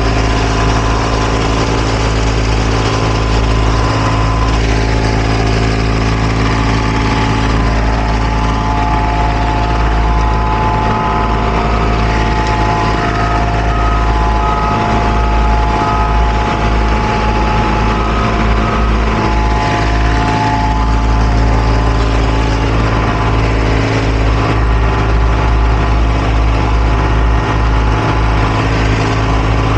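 The engine of heavy asphalt-paving equipment running steadily, loud and close. A higher whine rises over it for a stretch in the middle.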